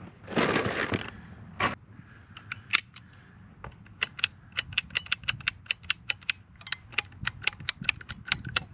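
A short scrape about half a second in, then a rapid run of sharp mechanical clicks, about four a second, from a ratcheting hand tool being worked.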